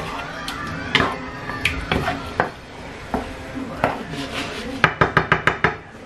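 Wooden spatula stirring a chunky tomato and onion sauce in a non-stick frying pan, scraping and clicking against the pan, with a quick run of about eight sharp knocks near the end.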